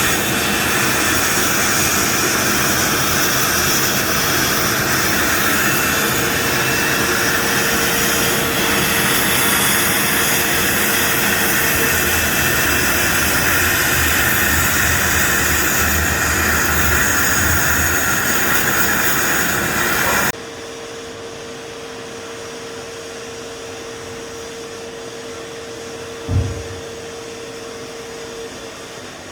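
Akwilon CNC automatic sandblasting machine blasting with a loud, steady hiss of compressed air and abrasive, which cuts off suddenly about two-thirds of the way through. After that a quieter steady machine hum with a held tone goes on, broken once by a short thump near the end.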